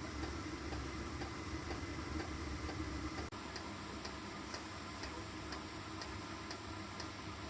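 Steady ticking, about two ticks a second, over a low steady hum, with a brief dropout about three seconds in.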